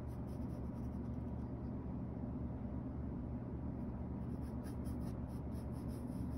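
Pencil sketching on sketchbook paper, light strokes over a steady low electrical hum.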